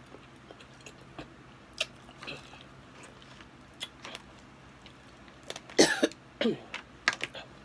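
Close-miked eating sounds: scattered wet mouth clicks and smacks as mussels are chewed. About six seconds in comes a loud, short cough-like vocal burst, then a brief falling voiced sound and a few more quick smacks.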